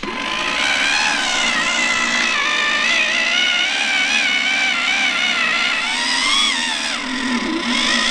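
Electric car-paint polishing machine running on the paintwork, its motor pitch wavering up and down as it works polish into a scraped panel to remove another car's paint transfer.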